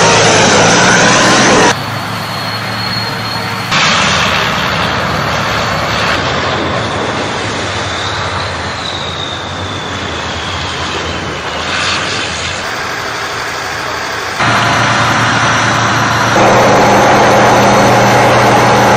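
Heavy tracked military vehicles, their engines running and tracks and running gear rolling, in short clips that change abruptly every few seconds. The last few seconds are a military trench-digging machine's engine working as it cuts through soil.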